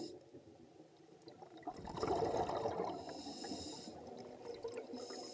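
A scuba diver's exhaled bubbles heard faintly underwater: a swell of bubbling about two seconds in, then a quieter steady water rush.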